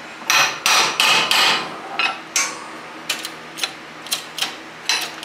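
Irregular series of sharp metal clanks and knocks from a hydraulic shop press in use: the driveshaft yoke and socket shifting on the steel press bed and the bottle-jack pump handle being worked to press a U-joint cap.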